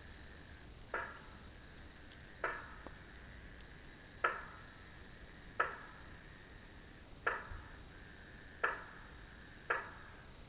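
A frog calling inside a partly emptied water tank: seven short, sharp single notes about every one and a half seconds. Each note rings on in the tank's hollow echo.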